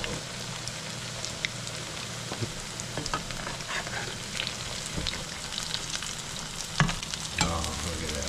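Potato pancakes sizzling and crackling as they shallow-fry in hot vegetable oil in a skillet. Near the end a metal spatula scrapes the pan as it is slid under a cake, which makes the loudest sounds.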